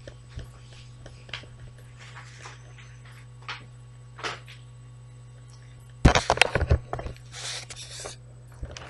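Someone moving about and handling things out of view: scattered faint knocks over a steady low hum, then, about six seconds in, a burst of loud knocks and rustling close to the microphone.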